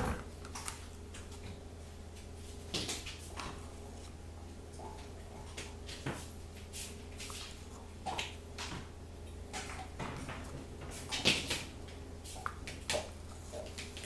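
Faint, irregular clicks and crunches of a dog gnawing on a bone, a "chunk chunk" sound, with a few louder knocks near the end, over a low steady hum.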